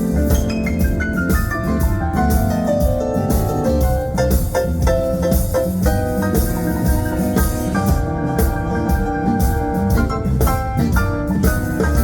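Live blues band playing an instrumental break: drums and bass under a lead line played on a melodic instrument, with a falling run about a second in.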